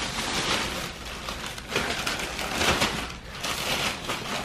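Black plastic garbage bag crinkling and rustling as a gloved hand rummages through the clothes and sneakers inside it.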